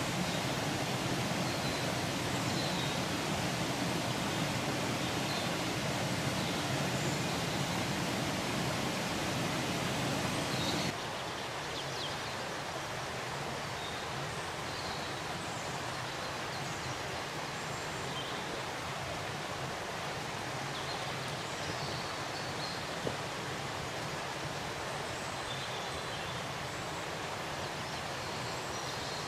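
Steady rushing outdoor ambience, a wind-like or water-like hiss, with faint bird chirps scattered through it. It drops noticeably quieter about eleven seconds in.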